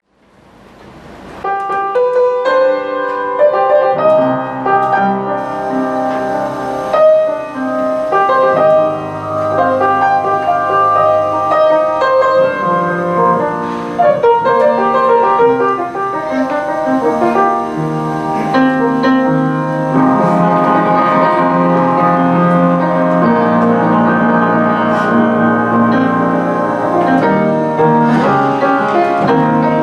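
Live small-group jazz: acoustic piano playing the introduction, with double bass and drums underneath. The sound fades in over the first second and a half.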